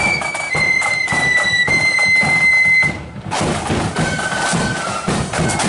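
Marching flute band playing: flutes carry a high melody over steady drum beats. About three seconds in the tune breaks off briefly, then music starts again.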